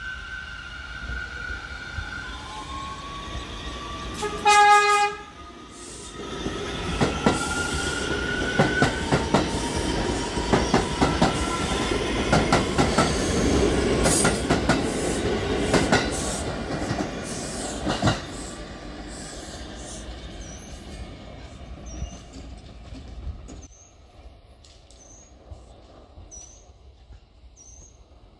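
New York City subway train giving one short horn blast, then running past with its wheels clacking over the rail joints and a rising whine, the sound fading away about twenty seconds in.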